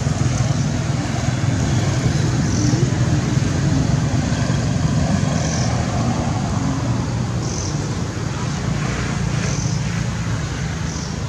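Steady low rumble of road traffic, with a faint short high chirp repeating about every two seconds.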